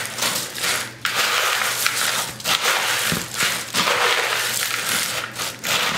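Golden Graham cereal pieces, dehydrated marshmallows and chocolate chips crunching and rustling against each other as they are stirred and tossed in a plastic mixing bowl to coat them in melted white chocolate. The crunchy rustle is nearly continuous, with brief pauses, and grows fuller about a second in.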